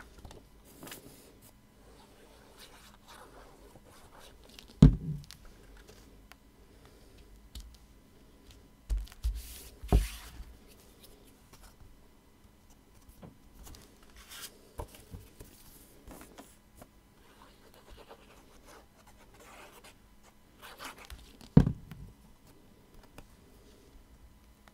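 Card stock rustling and scraping on a cutting mat as die-cut card circles are glued and pressed together into layers. A few sharp knocks come through, about five seconds in, twice around ten seconds, and loudest near twenty-two seconds.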